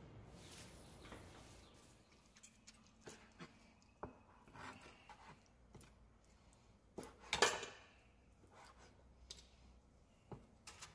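Dishes and utensils clinking and knocking now and then, with a louder clatter about seven seconds in.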